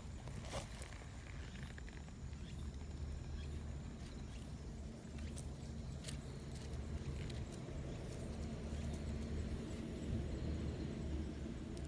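A cat purring steadily while a hand strokes it, with light rustling of fur and dry grass.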